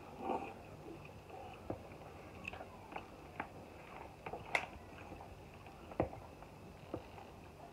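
Mukbang eating sounds: a mouthful taken and chewed at the start, then scattered sharp clicks and taps of a metal fork against clear plastic takeaway containers, the sharpest about four and a half seconds in.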